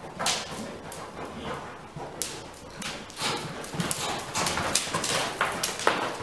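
Icelandic horse's hooves striking the dirt footing of an indoor arena as it is ridden: an irregular run of soft thuds and clicks, busier and louder in the second half.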